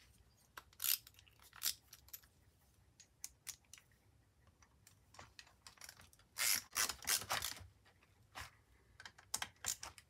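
Scattered light clicks and clinks of small machined aluminum parts being handled and fitted onto aluminum rods and bushings on a workbench, with a denser run of clicks about six and a half to seven and a half seconds in.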